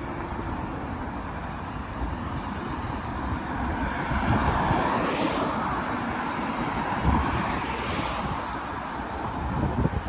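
Cars passing on a wet street, their tyres hissing on the rain-soaked road over a steady background wash of traffic. One car swells past about halfway through and another a little later.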